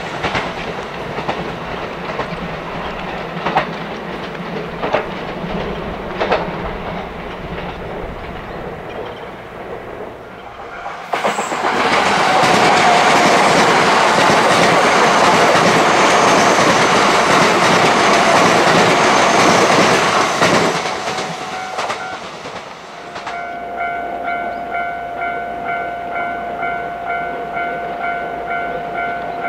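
JR West 227 series electric multiple unit approaching up a steep grade, its wheels clicking over rail joints, then passing close by in a loud rush of wheel and running noise for about nine seconds before it fades. After a cut, a steady high whine with a regular clickety-clack is heard as another 227 series train approaches.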